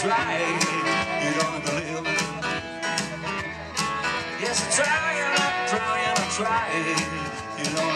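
Live country band playing: electric guitar and upright bass over a regular beat.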